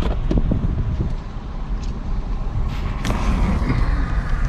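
Steady low rumble inside a parked car's cabin, with a few brief knocks and rubs about three seconds in as a hand handles the dashboard camera.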